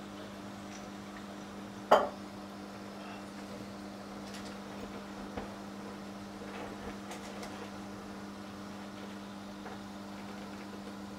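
Steady electrical hum of an aquarium's filter pump, with one sharp knock about two seconds in and a few faint clicks after it.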